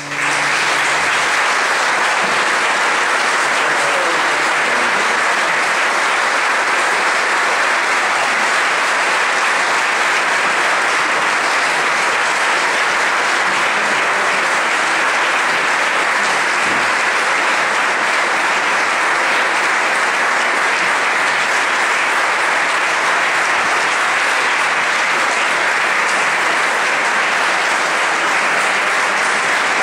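Audience applauding: dense, steady clapping that breaks out as the last organ note of the piece dies away.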